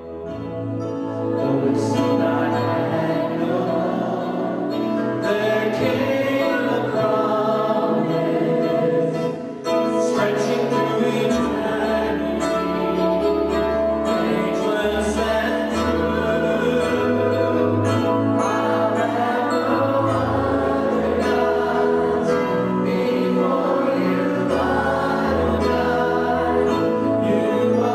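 A man and a woman singing a Christian worship song together over a sustained instrumental accompaniment with held bass notes. The music starts just after the opening and dips briefly about a third of the way through.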